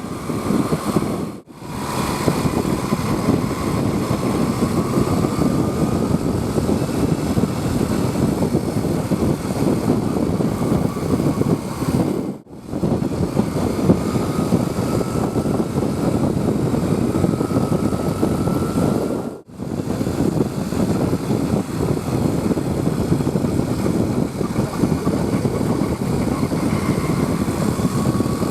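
Heavy bus engines labouring up a steep climb at close range, with a whine rising slowly in pitch. The sound drops out briefly about 1.5, 12.5 and 19.5 seconds in.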